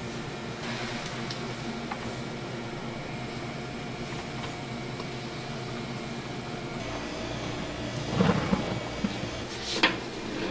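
Steady hum of kitchen machinery under a soft hiss of flour pouring from a metal scoop into a steel mixer bowl. Near the end come a louder scrape and one sharp click as the stand mixer's bowl-lift wheel is turned.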